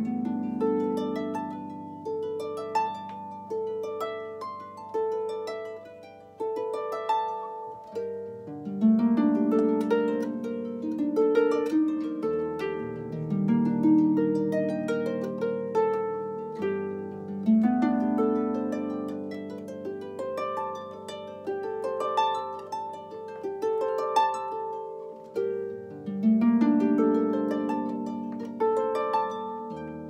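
Solo harp plucked by hand: flowing figures of ringing notes in the middle and upper range over low bass notes that sustain, with the bass changing every few seconds.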